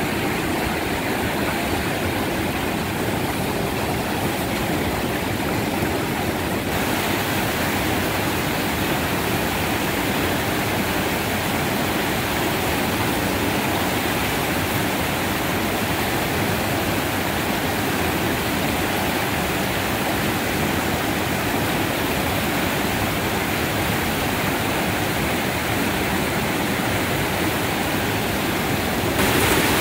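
Whitewater river rapids rushing over boulders: a steady, even wash of water noise that turns a little hissier about seven seconds in.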